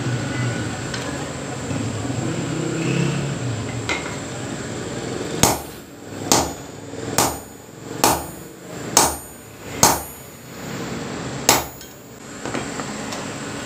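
Hand hammer striking a red-hot iron bar on a block anvil: seven sharp, ringing blows about a second apart, the last after a short pause. Before the blows there are about five seconds of low rumble.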